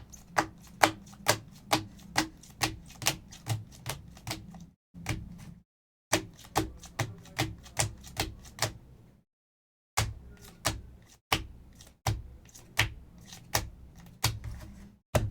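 A series of sharp clacks, about two a second, in runs broken by short pauses.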